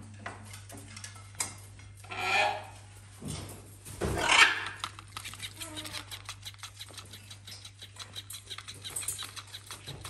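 A macaw gives two loud harsh calls, the second the louder, then an electric flopping-fish toy flaps against a blanket with quick, even ticks several times a second.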